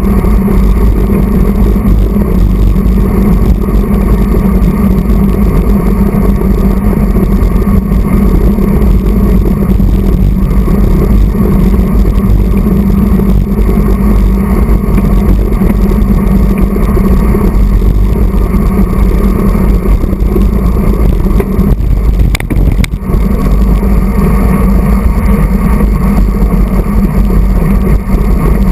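Wind and road rumble on a handlebar-mounted camera of a road bike riding at race speed in a pack: a loud, steady low rumble that stays constant throughout.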